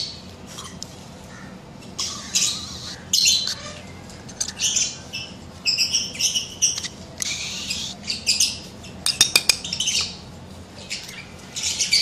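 Parrots calling over and over in short, high calls. A quick run of sharp clicks comes about nine seconds in.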